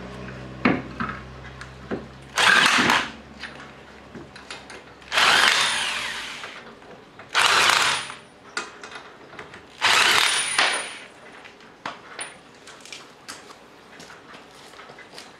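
Emerson EM-244 corded electric impact wrench running in four main bursts of about a second each, spinning lug nuts onto a car wheel and hammering them snug for a first, temporary tightening, with short clicks between the bursts.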